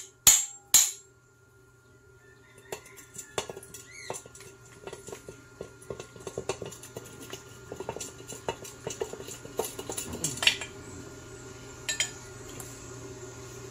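Two loud, sharp metal strikes in the first second, then many light, irregular metallic clinks and clicks of tools and engine parts being handled.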